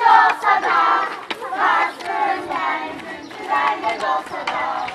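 A group of children chanting together, voices raised in short rhythmic phrases.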